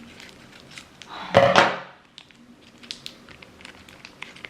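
A single thud about a second and a half in, then faint scattered light clicks and handling noises.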